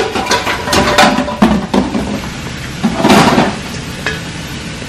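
Metal kitchenware clattering: a stainless steel mixing bowl and pots knocking and clinking against each other and the dish rack as they are handled, with a short rushing, scraping sound about three seconds in.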